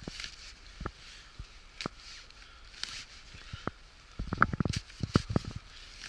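Small hand spade digging into damp forest soil and leaf litter: scattered thuds and scrapes of the blade, with a quick run of several strikes about four seconds in.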